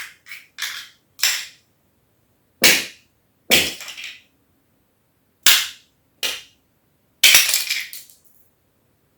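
Plastic self-levelling tile spacer clips snapping off at their breakaway stems as a rubber mallet knocks them out along the grout lines. About nine sharp cracks at irregular intervals, a few trailing off in a short rattle, with the last a quick cluster of snaps near the end.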